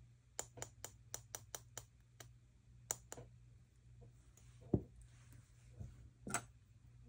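Rapid light tapping, about four taps a second, as a small pot is dabbed against a cut-out bunny shape; it stops a little over two seconds in. A few scattered clicks and a soft knock follow as the pot is set down and a palette knife picked up.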